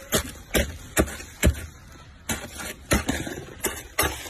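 Plastic scraper chipping and scraping thick frost off the inside of a freezer: a run of sharp crunching strokes, about two a second, with a short pause midway.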